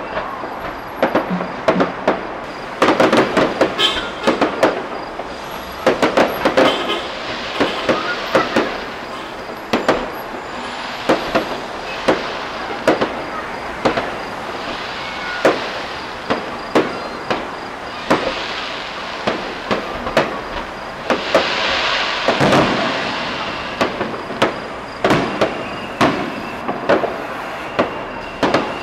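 Aerial fireworks display: shells bursting in repeated sharp bangs at irregular intervals, with thicker spells of crackling bursts about three seconds in, around six seconds in, and again about twenty-one seconds in.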